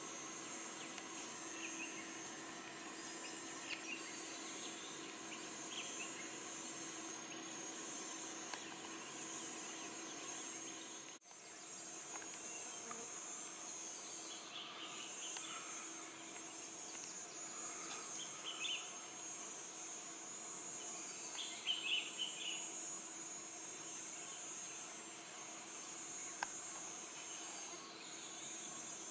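Steady, high-pitched chorus of tropical forest insects with a low steady drone beneath it, and a few short bird chirps, the loudest cluster about two-thirds of the way through. The sound drops out for an instant about 11 s in.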